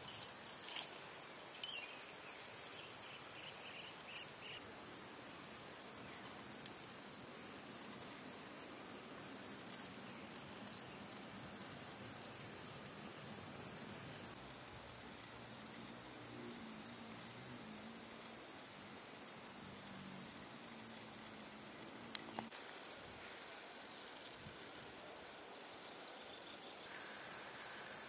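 Insects chirping in a fast, evenly pulsing high-pitched chorus whose pitch shifts twice, with a few faint crackles from a wood campfire.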